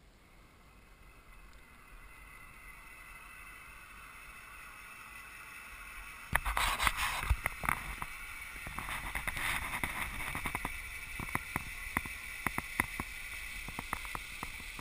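Zip line trolley's pulley wheels running down the steel cable: a whirring whine that grows louder as it nears. From about six seconds in it gets suddenly louder, with many sharp clicks and rattles.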